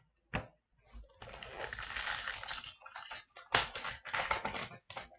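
Foil wrapper of a hockey card pack crinkling and tearing as it is handled and ripped open, in two spells of crackling, the second louder, with a light click near the start.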